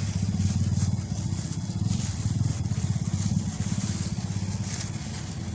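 A small engine running with a low, rapidly pulsing note that gradually fades toward the end.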